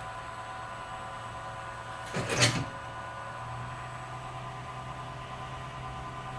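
Steady mechanical hum of running machinery, with one loud, sudden clunk about two seconds in.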